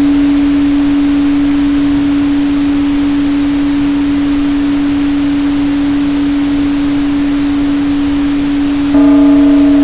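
A steady 285 Hz tone held over an even pink-noise hiss. About nine seconds in, a ringing layer with several higher overtones comes in and the sound gets a little louder.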